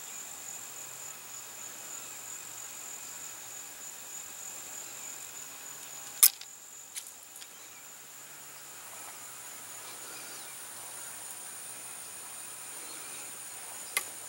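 Insects chirring in a steady high tone, with one sharp click about six seconds in and a smaller one near the end.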